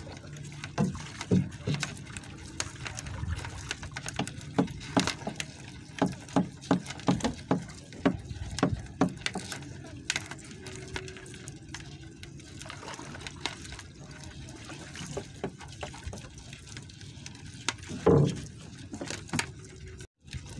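Sea water lapping and slapping against the hull of a small wooden outrigger boat, with many irregular splashes and knocks, and one stronger slap near the end.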